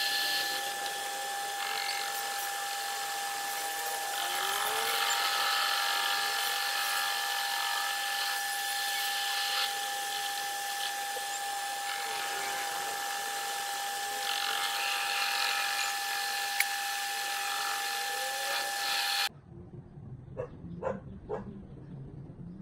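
Metal lathe turning a steel shaft under a cutting tool: a steady motor and gear whine with the hiss and scrape of the cut. About nineteen seconds in, the sound cuts off abruptly and a dog barks a few times.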